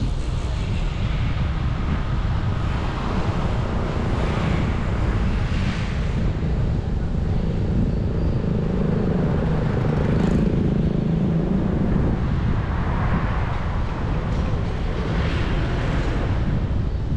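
Steady motorbike riding noise: the low drone of engine and tyres with wind rushing over the microphone, swelling briefly a few times.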